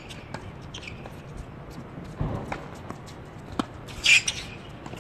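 Tennis ball bouncing on a hard court, with scattered sharp pops and knocks of ball and racket. A low thud comes about two seconds in, and a short, loud hissing burst just after four seconds in.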